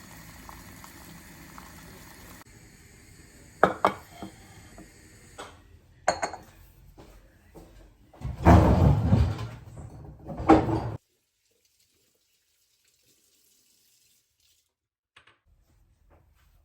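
Kitchen sounds: dishes and cutlery clinking and water splashing briefly, with the loudest, noisiest stretch about eight to ten seconds in.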